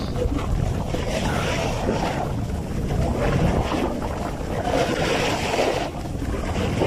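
Wind buffeting the microphone while riding downhill, with a snowboard's edge hissing and scraping over the snow in repeated surges.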